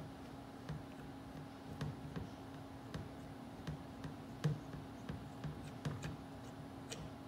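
Blue locking knob of a Levó head-positioning adapter being turned by hand to lock it onto a metal Mayfield skull clamp, giving irregular light clicks and ticks, about one or two a second, over a steady low hum.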